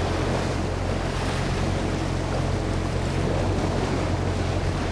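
A fishing boat's engine running steadily with a low hum, over the rush of water and wind on the microphone.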